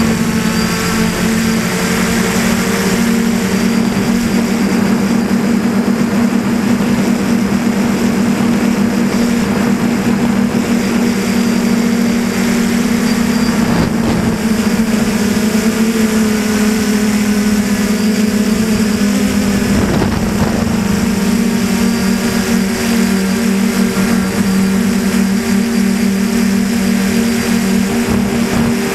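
DJI Flamewheel 450 quadcopter's electric motors and propellers buzzing steadily, heard up close from the camera mounted on the craft, the pitch shifting slightly as it manoeuvres. Two brief louder rushes of noise come partway through.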